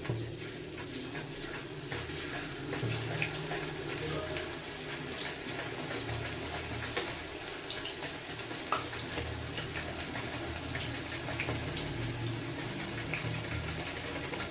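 Hot oil sizzling and crackling steadily as freshly sliced chips deep-fry, with many small pops throughout.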